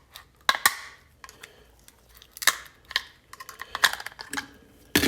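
Small plastic and metal parts of a disassembled Echo Dot smart speaker clicking and knocking as they are handled, about half a dozen sharp knocks at irregular intervals.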